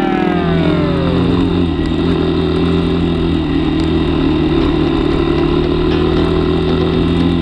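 Yamaha XT250's single-cylinder four-stroke engine under way, its revs falling for about the first second and a half, then running at a steady pitch.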